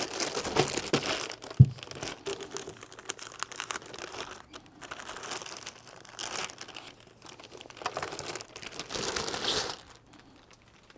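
Clear plastic bag crinkling and rustling in irregular bursts as it is pulled off a radio transceiver by hand, with one dull thump about a second and a half in.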